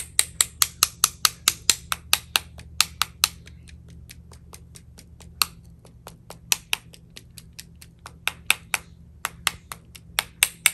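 Sharp clicks of a paint-loaded painting brush being knocked against another brush to splatter paint: about four or five taps a second for the first three seconds, then scattered taps, then another quick run near the end.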